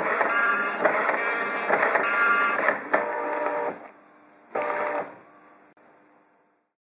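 OKI Microline 3320 nine-pin dot matrix printer printing, its print head buzzing across the page in passes of about half a second each. After about three seconds the printing stops, and the paper-feed motor whines twice as it advances the tractor-feed paper.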